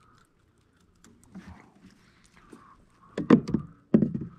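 Light handling noise, then a quick cluster of knocks and thumps about three seconds in as a crappie is unhooked and the landing net is moved against the plastic kayak.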